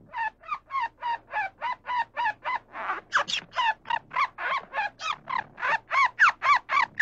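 An animal calling in a rapid, unbroken series of short harsh calls, about three or four a second, each bending up and down in pitch. The calls grow louder in the second half.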